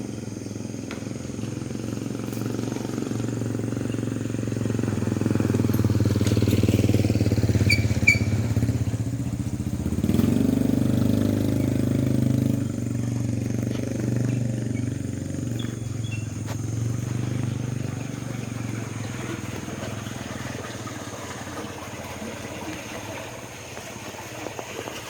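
A small engine running, growing louder over the first several seconds and then fading slowly, with a brief bend in pitch about ten seconds in as it passes.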